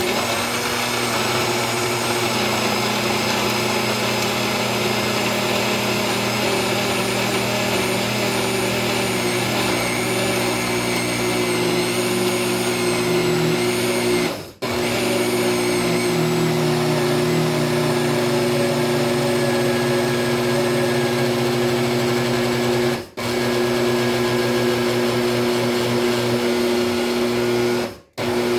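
Countertop blender running, crushing ice with milk, cocoa powder and protein into a thick shake. The motor hums steadily and its pitch rises a little partway through. It stops briefly about halfway and twice near the end.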